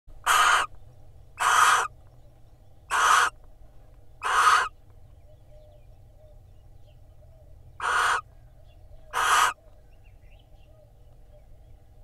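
Barn owls giving six short, harsh hissing calls inside a nest box: four about a second and a half apart, then two more after a pause of about three seconds.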